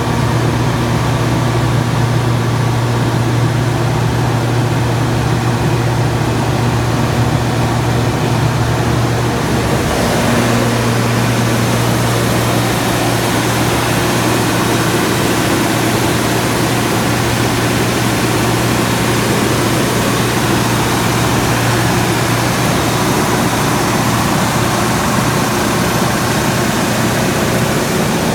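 Cummins GTA8.3 natural-gas six-cylinder engine of a 150 kW generator set running at steady speed, a constant low hum with a strong fixed tone. About ten seconds in the sound turns brighter, with more hiss on top.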